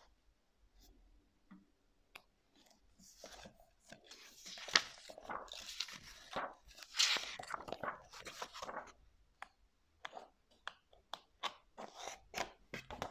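Paper pages of a paperback book being turned by hand, rustling and crackling. A dense stretch of rustling in the middle gives way near the end to a string of separate crisp page flicks.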